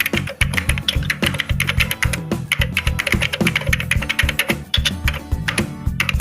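Computer keyboard typing sound effect: a quick, irregular run of key clicks, playing over background music.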